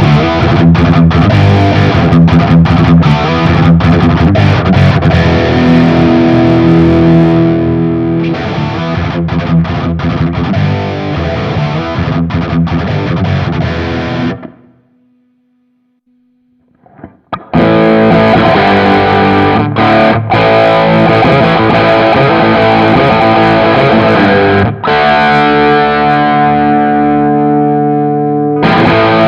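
Fender Stratocaster electric guitar played through a Nux MG300 amp modeler with a distorted amp tone, riffing and holding chords. Partway through, the playing stops for about three seconds, leaving only a faint held note, then starts again.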